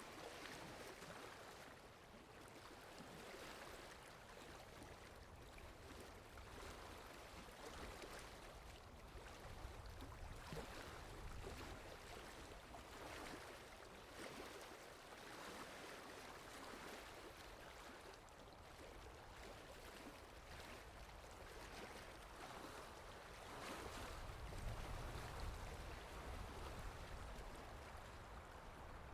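Faint water lapping in soft, irregular swells, with wind adding a low rumble that rises twice, around ten seconds in and again near the end.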